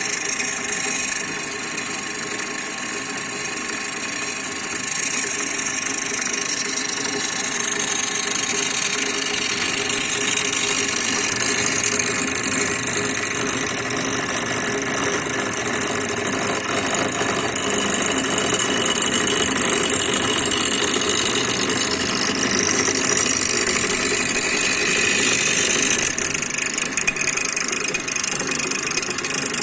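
A bench-grinder wheel on a mandrel, driven by a small milling machine, slowly grinding the bevel of a thickness planer blade. The motor runs steadily under a hiss of the wheel on the steel, which gets louder about five seconds in. The feed is so light that it polishes the edge more than grinds it.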